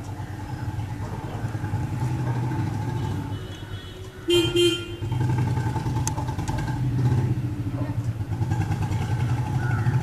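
Motor vehicle engine running with a steady drone that swells and eases, and two short horn toots in quick succession about four seconds in, the loudest sounds.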